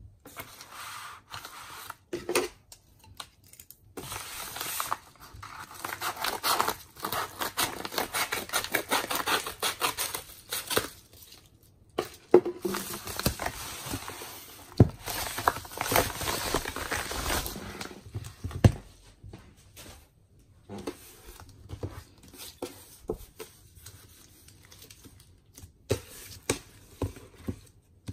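Paper padded mailer being torn open and crinkled by hand, with the loudest tearing and rustling in the middle. It is followed by quieter rustles and taps as shrink-wrapped album packages are handled.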